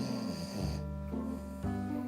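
A pet dog snoring in its sleep, each breath a rough, noisy rasp, over background music with held notes that change in steps.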